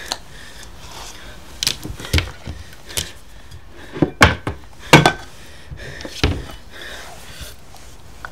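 Loud, irregular knocks and bangs on a wooden door, about nine in all over some five seconds, loudest in the middle. Soft, shaky panting in between.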